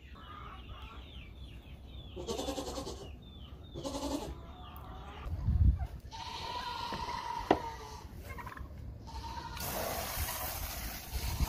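Nigerian Dwarf goat bleating, two short wavering bleats about two and four seconds in, then a longer steady call after a low thump near the middle. Gusty wind rushes on the microphone near the end.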